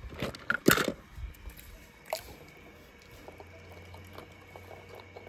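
Water splashing as a hand dunks a small toy car into a bucket of water: a cluster of splashes in the first second and one more about two seconds in, then faint drips.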